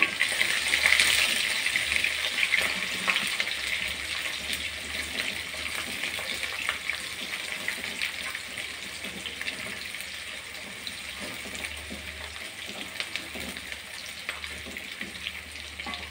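Whole shallots sizzling in hot sesame oil in a nonstick kadai. The sizzle is loudest just after they go in and dies down steadily, with scrapes and taps of a wooden spatula stirring them.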